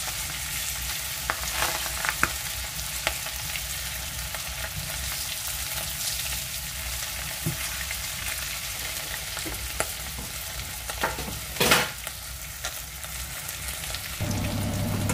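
Salmon pieces sizzling in hot oil in a metal pan, with a few short knocks and scrapes of a spatula against the pan as the pieces are turned; the loudest knock comes about three-quarters of the way through. A low steady hum comes in near the end.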